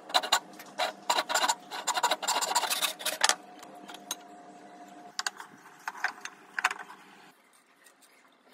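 Stanley FatMax handsaw cutting through a teak board, a quick run of rasping strokes for about three seconds. A few lighter knocks follow near the end as the cut pieces of wood are handled.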